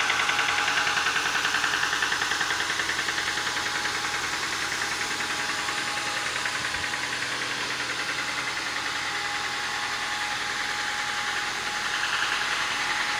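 Ford 2.3 L EcoBoost turbocharged four-cylinder running with a steady, rhythmic knock from the bottom end, a little louder near the end. This is connecting-rod knock from cylinder two, whose rod bearing has spun.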